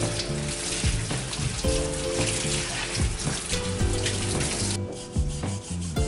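Running water and a brush scrubbing a wet bicycle wheel, over background music with a beat; the water's hiss stops about five seconds in.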